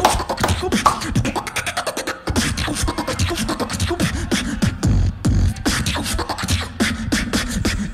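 Live beatboxing through a handheld microphone: a fast, dense run of sharp clicks and snare-like hits over deep kick sounds.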